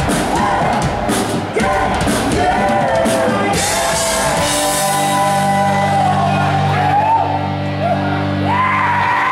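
Live band with singers playing the end of a song: drums hitting for the first few seconds, then a held final chord ringing out with voices singing over it and a shout near the end.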